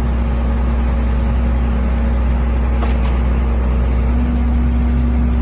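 Drilling rig's engine and hydraulic power unit running steadily with a deep, even hum. A light click comes about three seconds in.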